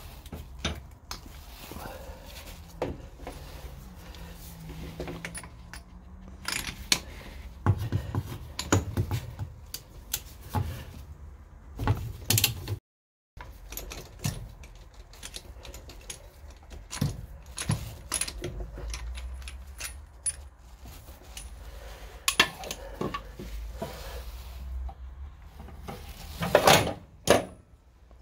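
Irregular metallic clicks, clinks and knocks of gloved hands and tools working on the distributor, spark plug leads and spark plugs of a UAZ 469 engine, with louder clusters of clanks in the middle and near the end. The audio briefly drops out about halfway through.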